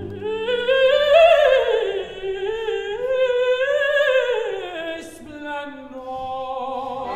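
Operatic mezzo-soprano voice singing an unaccompanied ornamented passage with a wide vibrato, the line climbing and falling in runs.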